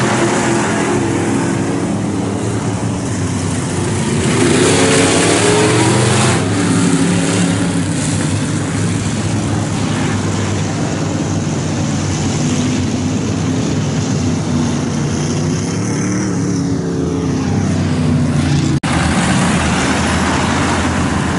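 A pack of dirt-track SportMod race cars running, their V8 engines rising and falling in pitch as the cars pass one after another. The engines are loud throughout, with a brief split-second dropout in the audio near the end.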